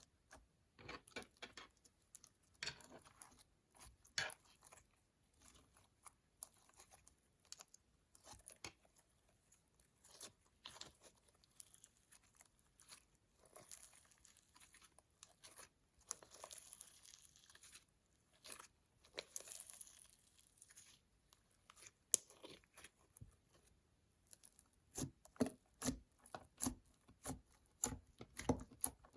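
Slime being kneaded and stretched by hand, making irregular sticky clicks, pops and crackles. It grows denser and louder near the end.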